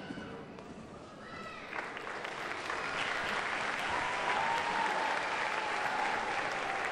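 Audience applause after a song, swelling in about a second and a half in and then holding steady.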